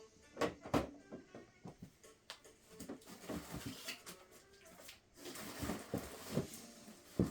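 Hard plastic CGC comic slabs being handled and set down, with several sharp clacks and some rustling in between.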